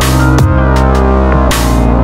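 Electronic background music with a heavy sustained bass, drum hits and two cymbal-like crashes, one at the start and one about a second and a half in.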